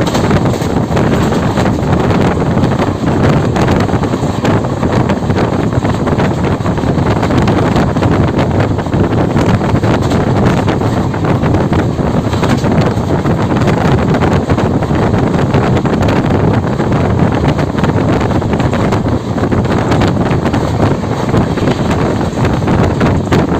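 Wind buffeting the microphone: a loud, steady rushing rumble that flickers constantly.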